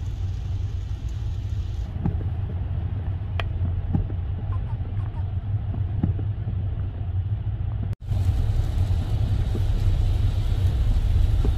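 Steady low rumble of a car driving on a wet highway, heard from inside the cabin: tyre and engine noise. It breaks off for an instant about eight seconds in, then carries on slightly louder.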